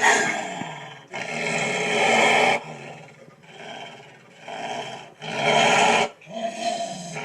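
An animal growling and roaring in a series of about six loud, rough calls, each lasting up to about a second and a half, with short pauses between them.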